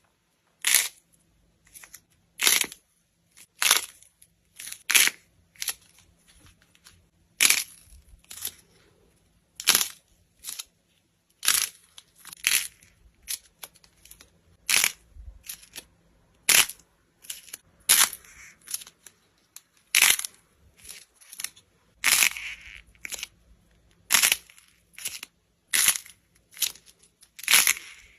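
Slime being pressed and squeezed by hand, giving a series of short, sharp crackling pops at roughly one a second, the crunch of crunchy slime.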